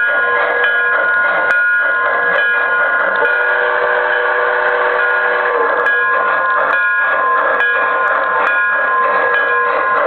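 Model train's steam-locomotive sound effects: a chorded steam whistle held throughout over running noise, with an added lower note from about three seconds in until nearly six seconds, and scattered light clicks.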